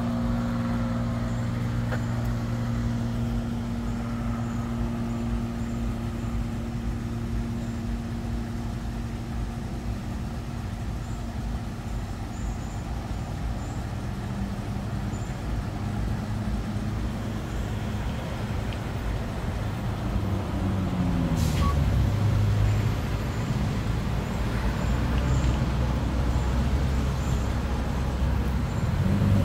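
A motor vehicle's engine runs steadily at idle with a low hum. About twenty seconds in, its pitch slides down and settles into a deeper rumble, with a single sharp click just after.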